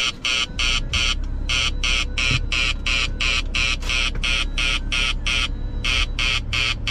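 Gojek driver app's incoming GoCar order alert ringing from a phone: a rapid, repeating electronic chirp, about three a second, pausing briefly twice, over a low hum.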